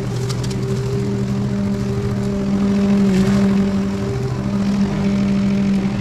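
Walk-behind petrol lawn mower engine running steadily at constant speed, with a brief swell in loudness about halfway through.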